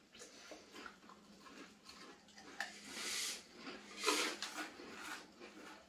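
People crunching and chewing mouthfuls of Pringles crisps, a steady run of small crackling bites, with two louder crunchy rustling bursts about three and four seconds in.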